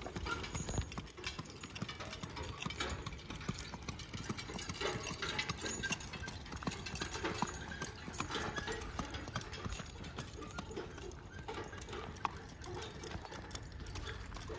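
Friesian horse's shod hooves clip-clopping on asphalt as it pulls a two-wheeled cart along the road.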